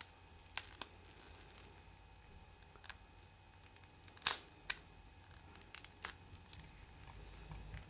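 Scattered light clicks and taps of hard plastic toy parts being handled, with the loudest pair of clicks about four seconds in.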